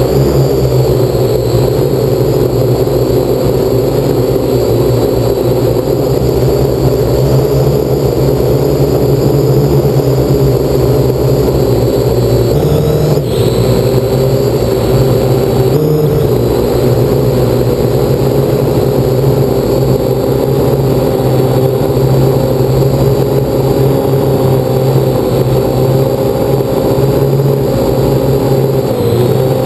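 Parrot AR Drone 2.0 quadcopter in flight: its four electric motors and propellers running steadily and loudly, with brief shifts in pitch about 13 and 16 seconds in.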